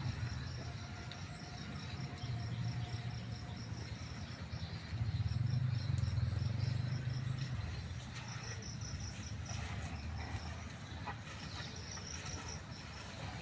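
Insects chirping in short, evenly spaced pulses, about four a second in runs, over a low rumble that swells for a couple of seconds around the middle.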